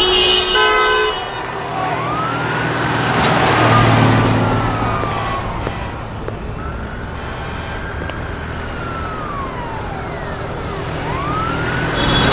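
Emergency-vehicle siren wailing, its pitch slowly rising and falling about three times, over the steady noise of city street traffic.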